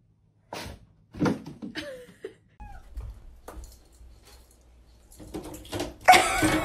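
Several sharp knocks and thumps, with a few short, falling animal cries between them, and a louder cry with several tones near the end.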